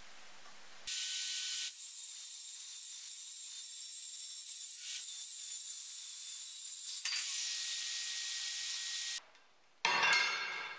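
GKS 66 CE circular saw cutting through a steel plate: a steady high hiss that stops suddenly about nine seconds in. A short clatter follows near the end.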